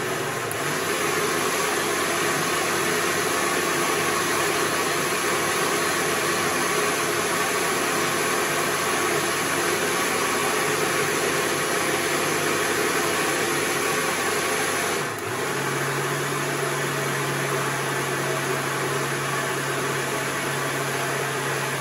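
Bosch MultiTalent 3 MCM3200 food processor's 800 W motor running its blender jug on speed 2, whirring steadily as it purées mango with yogurt and milk. About fifteen seconds in the sound dips for a moment and a low hum joins the whir.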